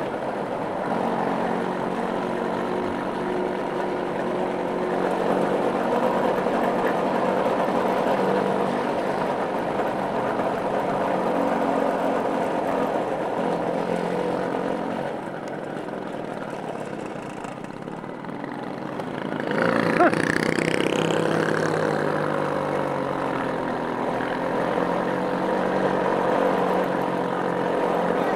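Small motorcycle engine running steadily while riding, with wind noise over it. About two-thirds of the way in it eases off for a few seconds, then revs up again as the bike accelerates.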